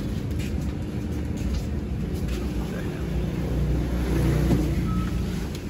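Low, steady engine rumble of a vehicle running close by, swelling a little about four seconds in.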